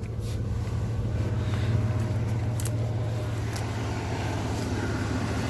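Chevrolet 4.3 V6 with throttle-body injection idling steadily with a low, even hum. It is a smooth, healthy idle now that the vacuum-leaking TBI unit has been swapped.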